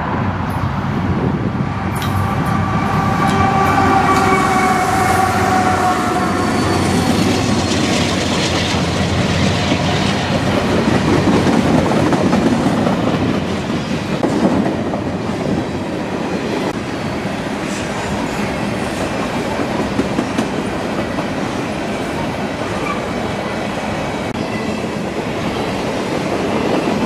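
Freight train passing close by: diesel locomotives go by, followed by a long string of loaded hopper cars rumbling and clattering over the rail. For several seconds as the locomotives pass, a sustained tone in several pitches sounds and slowly falls, then gives way to the steady wheel rumble of the cars.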